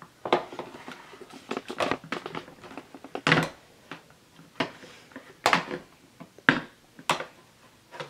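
Hard plastic parts of a Hoover Rewind bagless upright vacuum clicking and knocking as the dust cup and its lid are handled and fitted back into place. The clicks are irregular, with louder knocks about three, five and a half and seven seconds in.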